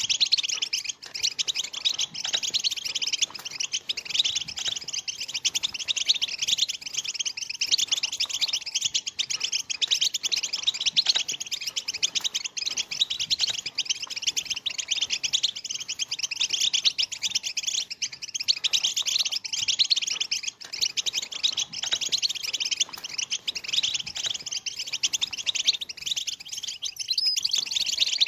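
A flock of European goldfinches twittering and chattering without a break, many quick high chirps overlapping.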